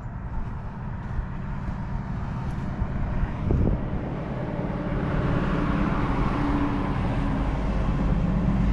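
Bobcat skid-steer loader's engine running under load, getting louder through the second half, with a single clunk about three and a half seconds in.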